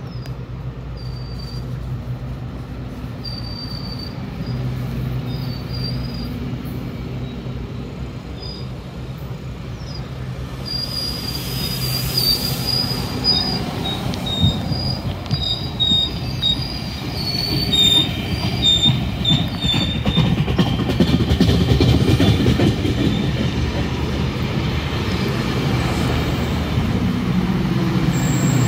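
GO Transit commuter train pulling out of the station: a steady low engine hum under rolling rail noise, with many short, high-pitched wheel squeals, getting louder toward the end.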